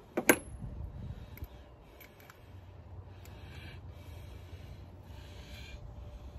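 A sharp metallic clink with a brief high ring just after the start, then soft rubbing and breathing as a spark plug is handled and lowered into the engine's plug well.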